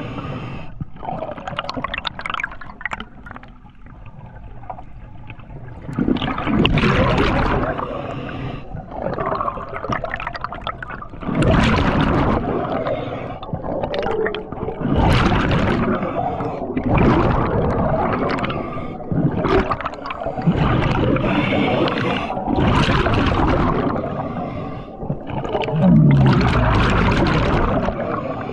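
Diver breathing through a scuba regulator underwater: a rush of exhaled bubbles every few seconds, with quieter gaps between breaths.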